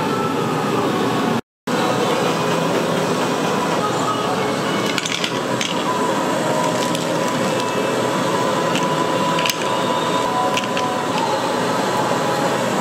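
Busy street-food stall kitchen noise: a steady hiss with scattered clicks and clinks of utensils, cut off for a moment about a second and a half in.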